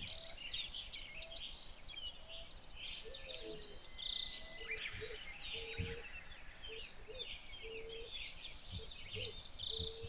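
Birds chirping and calling in many overlapping short calls. From a few seconds in, a short low note repeats about twice a second.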